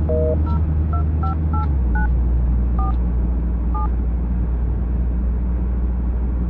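Mobile phone keypad beeps as a number is dialled: about eight short two-note tones in the first four seconds. Underneath is a steady low rumble of the car's engine and road noise inside the cabin.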